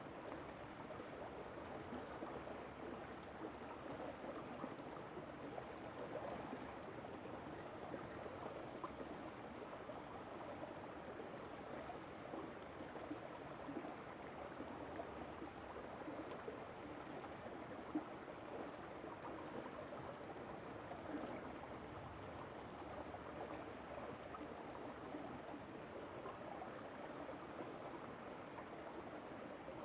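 A small river flowing and gurgling over stones, a steady water noise, with one faint click about 18 seconds in.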